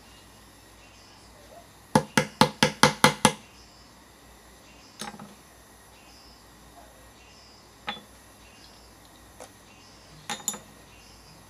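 Small hammer tapping rolled zinc wick tubes into holes in a bamboo stem: a quick run of about eight sharp taps, followed by a few scattered single clicks.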